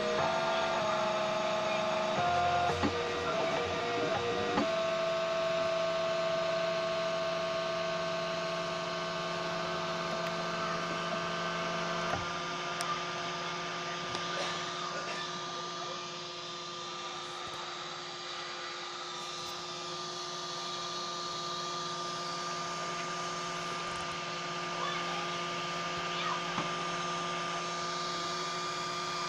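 Homemade 3D printer's stepper motors whining in steady tones that shift pitch in steps as the print head moves slowly over the last layers. About twelve seconds in the stepping tones stop and a steady electrical hum remains.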